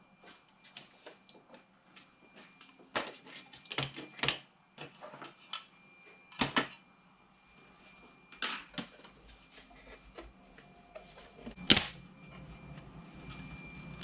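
Irregular clicks and knocks of small plastic and metal parts being handled while an Xbox 360 disc drive is taken apart, the sharpest knock near the end. A low steady hum comes in shortly before the end.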